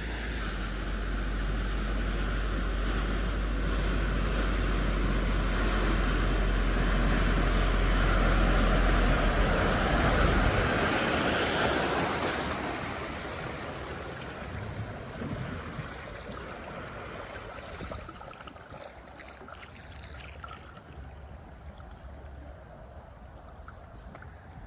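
BMW M140i pushing through deep floodwater: a loud rush of splashing water over a low rumble that builds for about ten seconds. The rumble then cuts off suddenly and the rush dies away to quieter water sounds, the engine stopping as floodwater gets into it.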